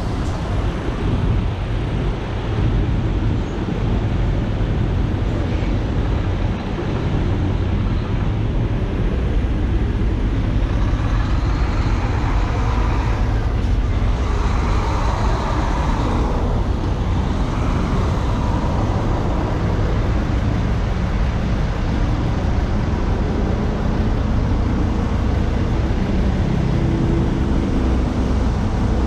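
Steady low rumble of semi-truck diesel engines and traffic, with a hazy noise above it that swells for a few seconds around the middle.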